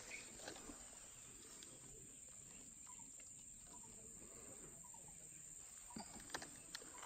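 Near silence outdoors: a faint, steady high-pitched insect drone, with a few soft footsteps on dry ground about six seconds in.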